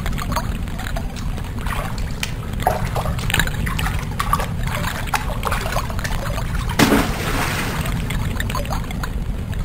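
A steady low rumble with trickling, dripping water and scattered small clicks, and a short louder rush of hiss about seven seconds in.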